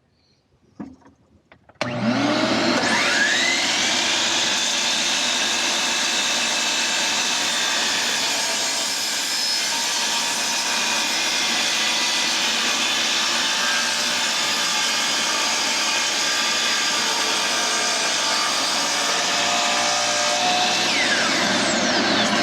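Vacuum cleaner switched on about two seconds in, its motor spinning up with a rising whine and then running steadily.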